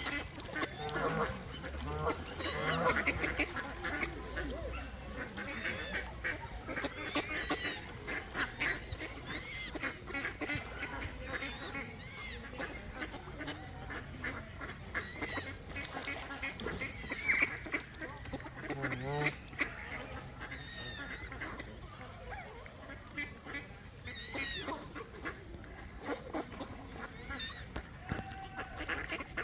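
A flock of ducks quacking, many short calls overlapping and repeating throughout.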